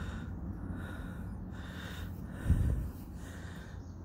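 Heavy rhythmic breathing close to the microphone, about two breaths a second, with one low thump about two and a half seconds in.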